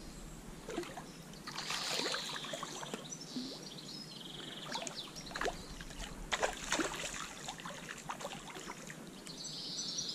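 Shallow stream water splashing and trickling, with irregular sharp splashes as a freshly netted brown trout is handled in the water.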